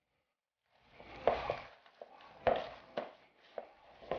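Wire whisk working a thick, wet chocolate cookie dough in a plastic mixing bowl, starting about a second in: irregular squelching strokes with sharp clicks of the whisk against the bowl.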